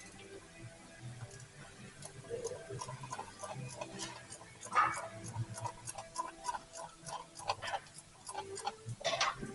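Hand ratchet clicking in short runs as bolts are worked loose on the engine front, with light metallic clinks and one louder knock about halfway through.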